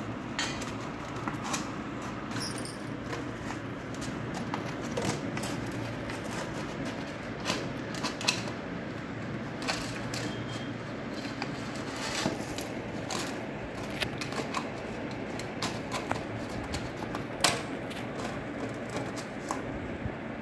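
Pomeranian puppy chewing and gnawing a plastic bottle: irregular clicks and crackles of teeth on plastic, over a steady background hiss.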